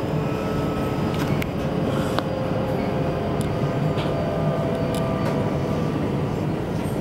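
Inside the passenger car of a JR West 321 series electric train running on the line: a steady rumble from the car and track, with a faint whine and scattered clicks and rattles.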